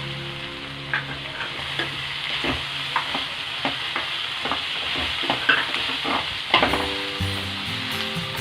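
Chopped onions, garlic, green chillies and curry leaves sizzling in hot oil in a kadai while a spatula stirs them, with irregular scraping knocks of the spatula against the pan.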